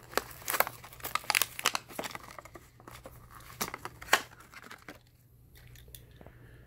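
Hot Wheels blister pack being torn open: the plastic bubble crinkling and the cardboard backing card tearing in a rapid run of sharp crackles and snaps. It dies away about five seconds in, once the die-cast truck is out.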